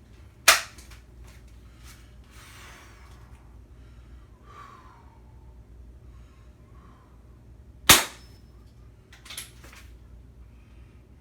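Beeman P17 single-stroke pneumatic air pistol firing two darts, two sharp shots about seven and a half seconds apart. Quieter handling clicks and rustling come between the shots, and a short cluster of clicks follows the second one.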